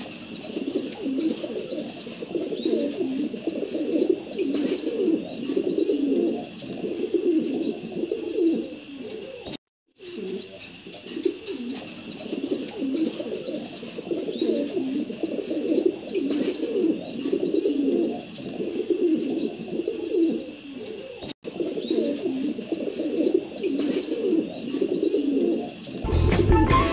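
Domestic pigeons cooing continuously, many coos overlapping, with small high chirping calls repeated above them. The sound breaks off twice for an instant, and guitar music comes in right at the end.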